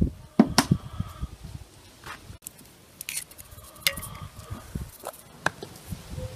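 Scattered light taps and clicks from hands and a metal spoon working in a plastic bowl of minced meat with a raw egg, as salt is spooned in from a glass jar.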